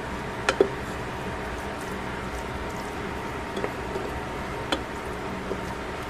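Shredded vegetables and meat sizzling in a stainless steel pan as a wooden spatula stirs them. The spatula knocks against the pan twice, close together, about half a second in, then clicks against it a few more times more lightly.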